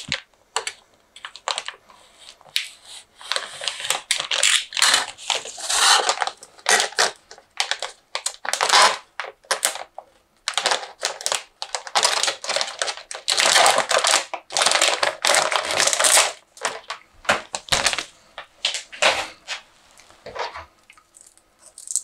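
Plastic packaging bag being slit with a utility knife and opened by hand, crinkling and rustling in irregular bursts.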